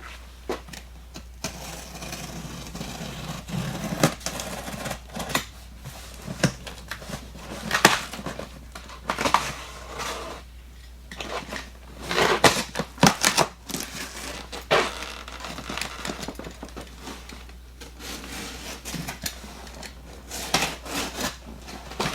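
A cardboard shipping case being worked open by hand, with irregular scraping, crackling and tapping of cardboard and packing tape.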